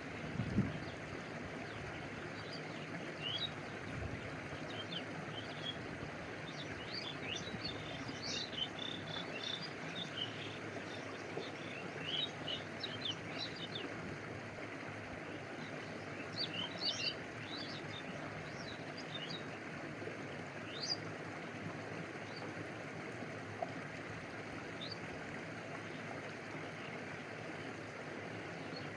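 Stream water flowing and lapping in a steady rush, with small birds chirping on and off over it, busiest in the middle. A brief low thump just after the start.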